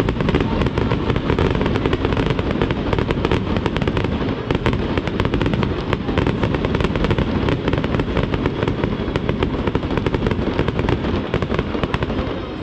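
Fireworks crackling: a dense, continuous rattle of countless tiny pops from golden crackling stars bursting over the lake. It eases off near the end.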